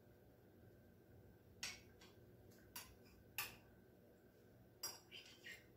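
A metal spoon clinking against a crock pot and a china plate as cooked carrots are scooped out and served. There are six or seven light, irregular clinks, starting about a second and a half in.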